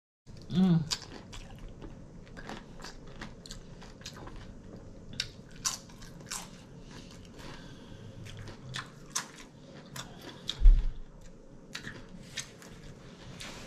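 Close-up chewing of tortilla chips with a taco salad topping: repeated sharp crunches and wet mouth clicks. A brief pitched sound comes about half a second in, and a single low thump, the loudest sound, comes about three-quarters of the way through.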